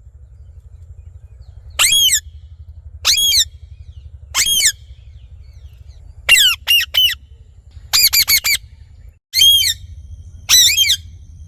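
Parrot giving a string of short, high calls, single calls every second or so, with quick runs of three and then four calls in the middle. A steady low hum runs underneath.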